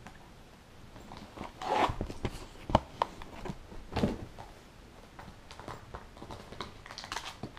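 A rat terrier tossing and chewing a paper tube on a couch: a string of crinkling, tearing paper sounds and light knocks, loudest in the first half.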